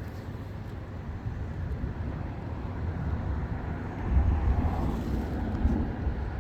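Low rumble of distant thunder, swelling about four seconds in and then easing, over steady outdoor background noise.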